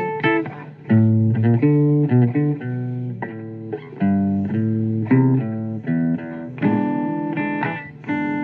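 Blues guitar playing a run of plucked notes and chords over low bass notes.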